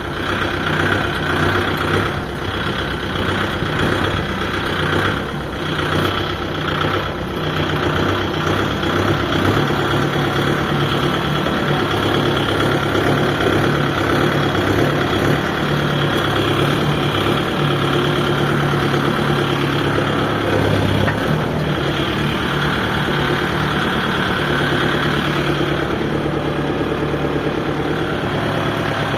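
Kubota MU5502 tractor's four-cylinder diesel engine running steadily.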